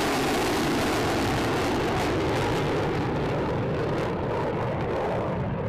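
F-35A Lightning II's single Pratt & Whitney F135 jet engine running in afterburner as the fighter flies past and climbs away, a loud, steady roar whose hiss thins out from about four seconds in as the jet recedes.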